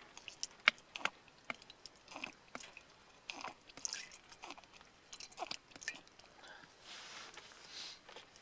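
A person eating close to the microphone: irregular chewing and biting sounds with scattered sharp clicks, the loudest click about a second in.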